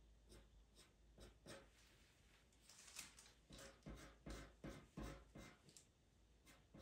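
Pastel pencil flicking short hair strokes across pastel mat paper: a faint run of quick scratches that comes faster about halfway through.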